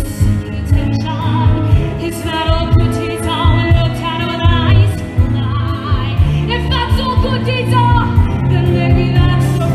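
Music: a woman singing sustained notes with heavy vibrato over a loud orchestral backing.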